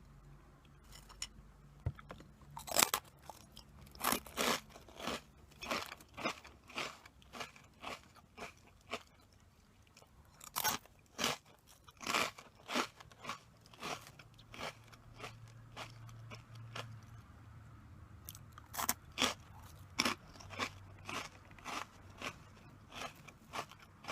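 Close-miked chewing of crunchy corn puff snacks (Meiji Curl): sharp crunches in runs of about two a second, with short pauses between mouthfuls.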